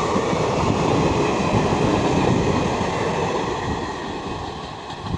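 A train running past on the rails: a steady rumble and rattle of wheels and coaches, dying down over the last second or two.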